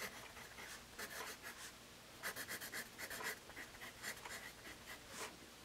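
Faint scratching of a Paper Mate Mirado Black Warrior #2/HB pencil's graphite on graph paper: short strokes in quick clusters with brief pauses, as letters are printed.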